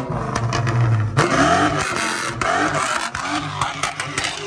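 Car engine revving: a steady low drone for about the first second, then the revs climb and the engine runs loud and high.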